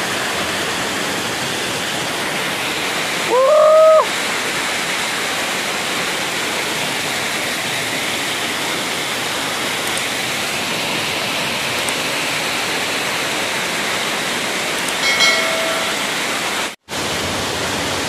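Mountain waterfall pouring over rocks: a steady, loud rush of falling water. A short rising call cuts through about three seconds in, and the sound drops out for a moment near the end.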